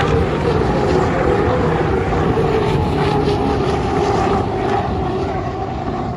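Turbine-powered unlimited hydroplanes racing past at full speed: a steady whining drone with a rushing noise behind it, fading a little toward the end.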